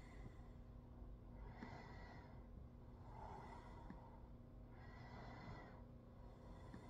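Faint breathing close to the microphone, a soft breath about every one and a half to two seconds, some with a thin whistle, over a faint steady low hum.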